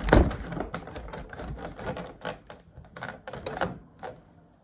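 A heavy thump, then a quick irregular run of clicks and taps, a few to the second.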